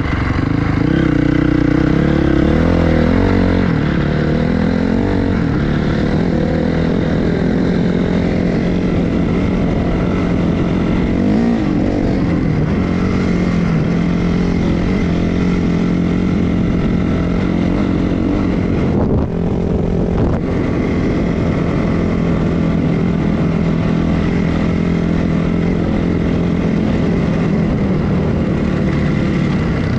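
Freshly rebuilt Honda CRF450R dirt bike's single-cylinder four-stroke engine running. Its revs rise and fall in the first few seconds, then hold fairly steady, with a short dip in revs about 19 seconds in.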